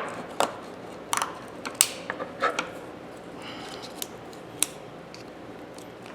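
Sharp, irregular metal clicks and scrapes of a hand tool working at the spring-loaded dust cover of a Thorsen 77J ratchet while trying to pry it off. The clicks are thickest in the first half.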